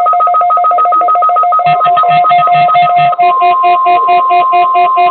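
Loud electronic music made of fast, evenly pulsing tones, with a low beat joining under it and a steady high tone holding from about three seconds in.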